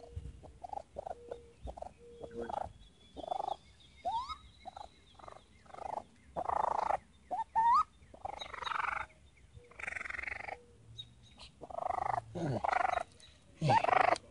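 Baby raccoon calling: a string of short, high chittering calls, some sliding up in pitch, with longer and louder cries in the second half.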